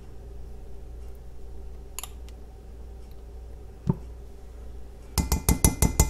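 A plastic measuring spoon tapped rapidly against a glass measuring cup, about eight sharp clicks near the end, knocking Dijon mustard off the spoon into the cup. Before that, only a low steady hum and a couple of soft clicks.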